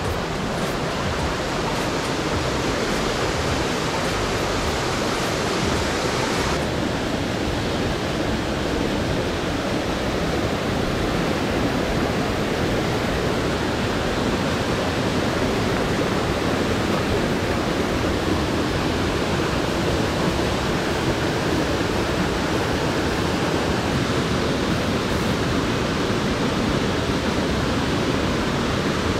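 Waterfall on a mountain stream, water rushing steadily; the hiss gets a little duller about six and a half seconds in.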